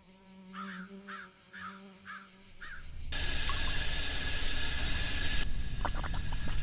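A crow caws five times, about two caws a second, over a low steady hum. About three seconds in, a loud steady steam hiss cuts in, and near the end it drops to a quieter hiss with scattered clicks.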